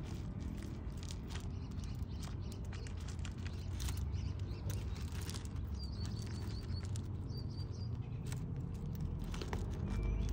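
Tortoises shifting and scuffling on gravel: scattered light clicks and scrapes over a low rumble. A short run of high bird chirps comes about six seconds in, and another about a second later.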